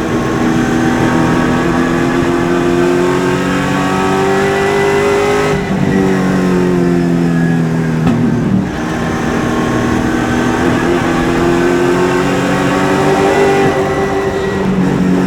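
Super late model race car's V8 engine at racing speed. The revs climb, fall away as the driver lifts about five and a half seconds in, then climb again from about nine seconds in, with another lift near the end.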